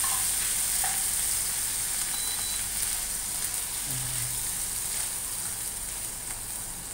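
Corned beef sizzling in hot oil in a nonstick frying pan, broken up and stirred with a spoon in the second half; the frying hiss fades slowly. It is being sautéed dry until toasted rather than left wet.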